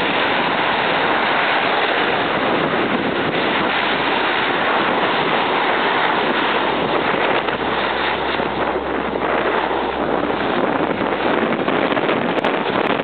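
Lockheed C-130 Hercules' four turboprop engines at takeoff power, a loud steady roar with a low propeller drone underneath from about four to ten seconds in, mixed with wind buffeting the microphone.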